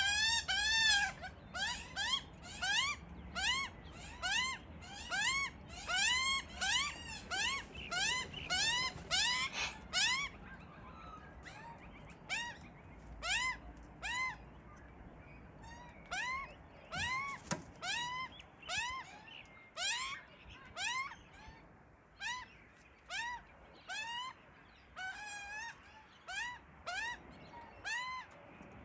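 Baby Australian magpies giving hungry begging calls: short cries that rise and fall in pitch. They come about two a second at first, then slow to roughly one a second and grow a little quieter after about ten seconds.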